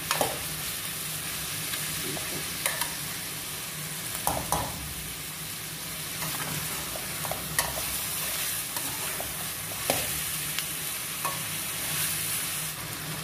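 Chicken pieces sizzling steadily in hot oil in a stainless steel pot as they brown. A metal slotted spoon scrapes and clicks against the pot a dozen or so times as they are stirred.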